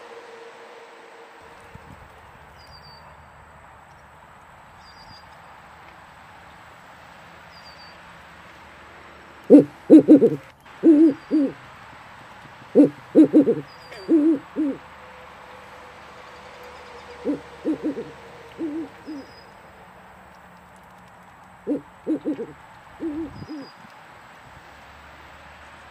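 Owl hooting in four bouts of several short hoots each, the first starting about ten seconds in, over a steady hiss with faint high chirps every couple of seconds.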